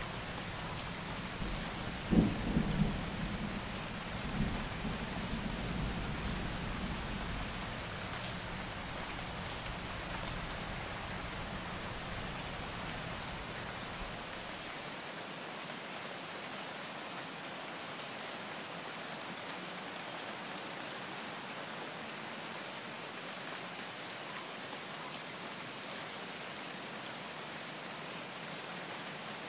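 Steady rain with low rumbles of thunder, the loudest about two to three seconds in. The low rumble drops out about halfway, leaving only the even hiss of the rain.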